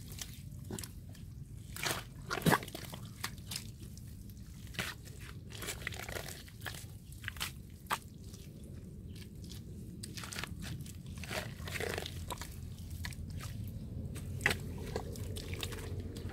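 Wet mud being dug, pried and scraped with a long-handled spade: irregular strokes, the loudest about two and a half seconds in.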